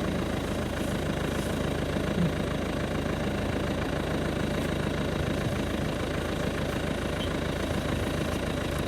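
GAZ-66 truck engine idling steadily with an even low hum and no change in speed.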